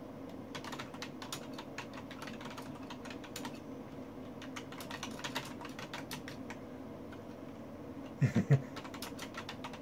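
Typing on a computer keyboard: a run of quick key clicks over a steady low hum, as a chat message is entered. About eight seconds in there are three quick, louder low sounds.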